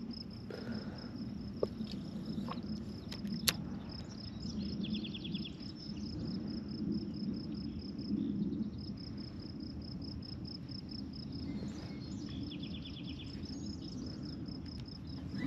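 Insect chirping, a high, steady and evenly pulsed call running on over low, steady outdoor background noise. A short, faster trill comes in twice, about five seconds in and again near twelve seconds, and a few faint clicks sound in the first few seconds.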